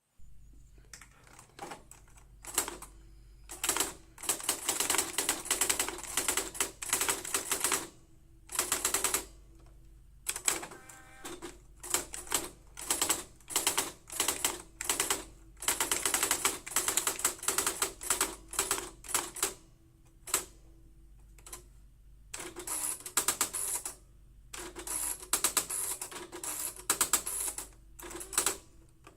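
Olympia Carrera De Luxe electronic typewriter typing: runs of rapid clatter lasting one to three seconds, separated by short pauses, over a steady hum.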